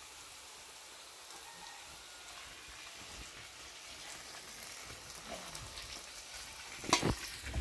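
Food sizzling in a frying pan: a steady hiss that slowly grows a little louder, with one sharp knock about seven seconds in.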